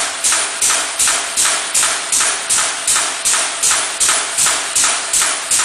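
Fully automatic punching press toothing bandsaw blade strip, running at a steady rhythm of about three short, sharp strokes a second, each stroke punching one tooth.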